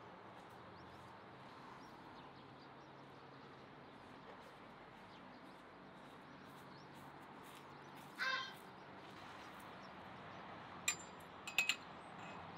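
Steel spit rod clinking against the metal rotisserie stands as it is set down, a few sharp ringing clinks near the end, over a faint steady outdoor hiss. A single short high call sounds a bit past the middle.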